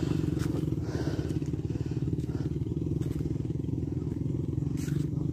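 Small motorcycle engine running steadily at an even speed, a low rumble with rapid firing pulses.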